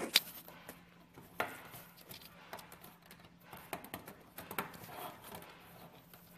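Plastic 18650 battery cell caps clicking and knocking as rows of them are pressed together and set against a wooden table. The loudest click comes just after the start, with more about a second and a half in and around four and a half seconds in, and light rubbing and tapping between.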